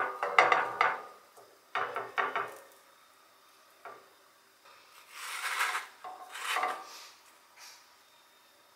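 Light crackling rustles as chopped garlic, chilli and coriander are sprinkled onto a buttered kulcha on a nonstick tawa, then two rasping scrapes about five and six and a half seconds in as a spatula slides under the flatbread against the pan.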